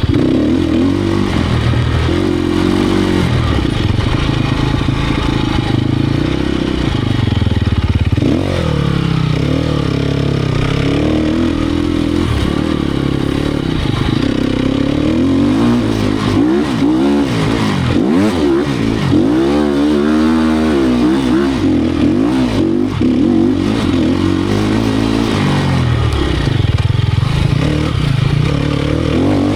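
2018 Sherco 250 SEF Factory's four-stroke single-cylinder engine running hard as the enduro bike is ridden off-road, its revs rising and falling again and again with throttle and gear changes.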